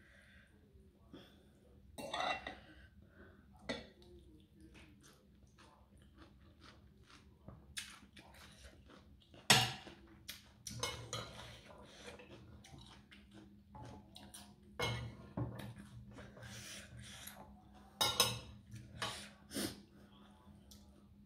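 Metal fork and spoon clinking and scraping on a plate, with chewing in between. The clinks come irregularly, the sharpest about nine and a half seconds in and a cluster near the end.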